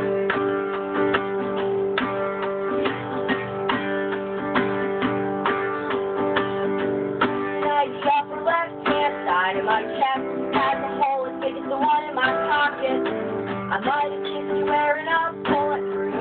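Acoustic guitar strummed in a steady rhythm, playing chords of an acoustic punk song.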